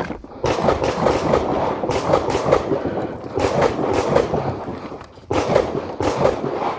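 Wheelchair wheels rolling over gravelly concrete: a steady rumbling crunch with scattered knocks, easing off briefly twice and picking up again sharply about five seconds in.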